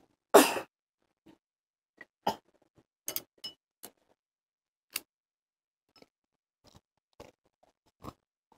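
Tableware during a meal: chopsticks and a spoon tapping and clinking against ceramic bowls in about a dozen scattered light clicks. There is a louder knock about half a second in.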